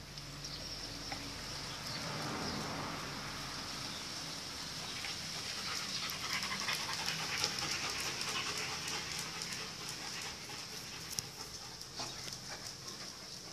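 A German Shepherd panting in quick breaths, with a few sharp clicks.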